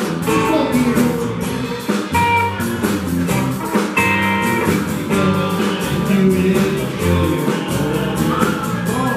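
Live rock band playing a classic rock cover with a steady beat: drum kit, electric bass and guitars.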